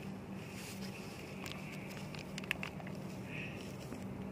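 Scattered light clicks and crinkles as hands handle tissue paper and a plastic zip-lock bag, over a steady background.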